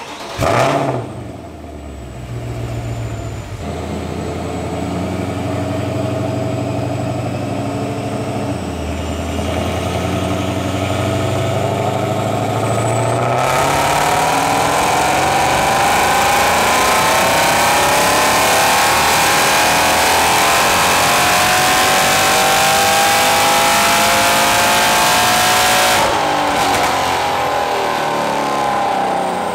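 Supercharged Mercedes E63 AMG M156 6.2-litre V8 on a chassis dyno: a short rev right at the start, several seconds of running at lower speed, then from near the middle a full-throttle dyno pull rising steadily in pitch for about twelve seconds, cut off abruptly a few seconds before the end as the throttle closes.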